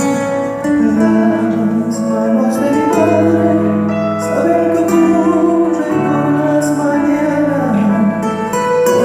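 A band playing a slow folk song live, with guitar among the instruments over sustained held notes and a bass line.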